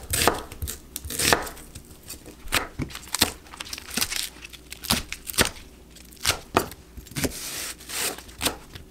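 Kitchen knife chopping kimchi coarsely on a cutting board, with sharp, unevenly spaced strokes at about one to two a second.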